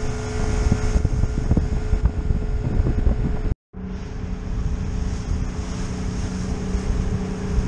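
Outboard-powered center-console boat running at speed. A steady engine hum sits under heavy wind buffeting on the microphone. The sound cuts out briefly about three and a half seconds in, then the engine hum carries on at a slightly lower pitch.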